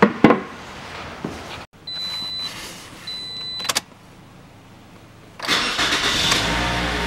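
A couple of clicks, then two short high beeps, then the 2015 Toyota RAV4's 2.0-litre four-cylinder engine cranks and starts about five seconds in and runs on steadily at idle.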